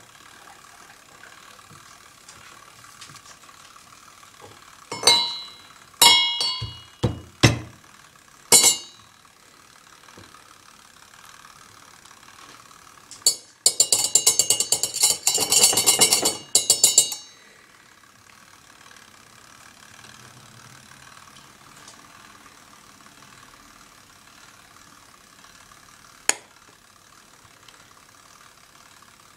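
Metal spoon and pestle clinking against a brass mortar: a few sharp ringing strikes, then a rapid clattering run for about four seconds, and one sharp click near the end.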